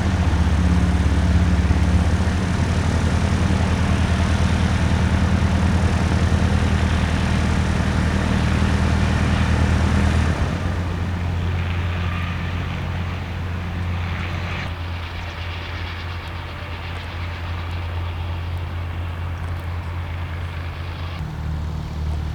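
Light propeller aircraft's piston engine running close by, a steady loud drone that drops abruptly in level about ten seconds in and runs on quieter.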